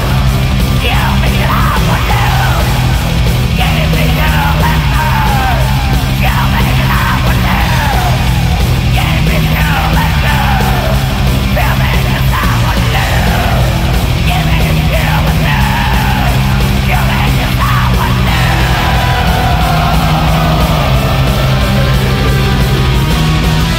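Loud, dense metal music, gothic or symphonic black metal, from a distorted band. A low bass figure repeats steadily under short, high falling sweeps that come about once a second, with one longer falling sweep near the end.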